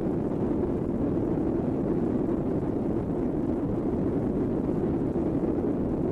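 Synthetic space-ambience rumble presented as the sound of Uranus's moon Puck: a steady, low noise with no distinct tones.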